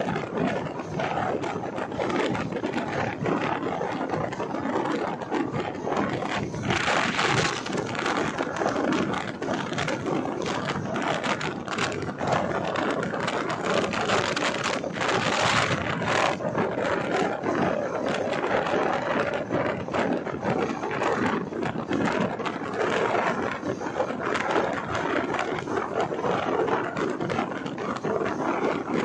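Running noise of a moving LHB passenger train: wheels on the rails and rushing air as a steady dense rumble, with two brief louder surges about 7 and 15 seconds in.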